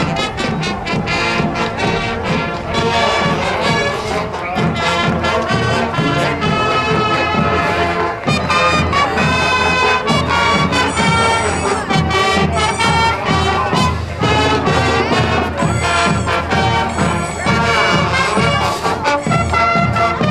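High school marching band playing: sousaphones, trumpets and trombones carry the tune over a steady beat from the snare and bass drums.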